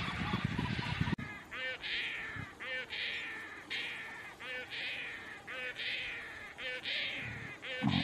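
Juvenile painted stork begging: a harsh call repeated about once a second, each a quick stuttering note followed by a falling rasp. For the first second a low rumble covers it, and that rumble cuts off abruptly.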